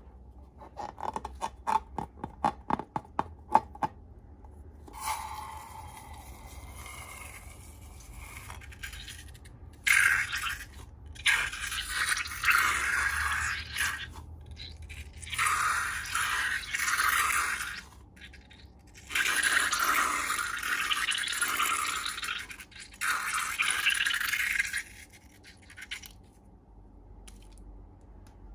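Slime and balloons being handled. First a quick run of crackling clicks, then a faint squeak, then a series of loud scraping, hissing strokes, each a second or more long.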